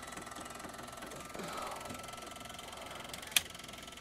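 ASTAR DVD player's disc drive running with its cover off: a faint steady whir with a fast even flutter. A single sharp click comes about three and a half seconds in.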